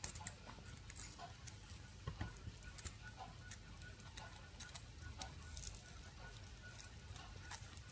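Faint, irregular small clicks and crackles of a Nixie tube's thin metal mesh anode being gripped, bent and torn away with side cutters.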